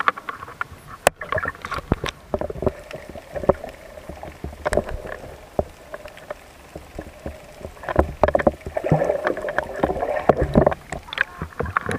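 Water sloshing and bubbling against a camera's waterproof housing held just under the sea surface, heard muffled, with many small clicks and knocks throughout.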